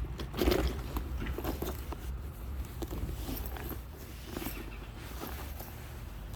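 Rustling and scattered light knocks of a bag and small objects being handled, with the loudest knock about half a second in, over a steady low hum.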